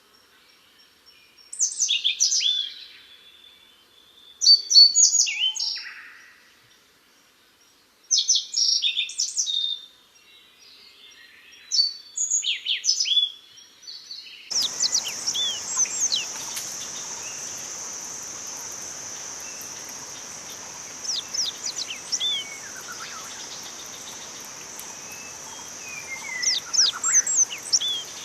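A small songbird singing short phrases of quick down-slurred whistles, four phrases a few seconds apart; the uploader asks whether it is a yellow bunting. About halfway a steady high-pitched hiss sets in, and fainter song notes go on over it.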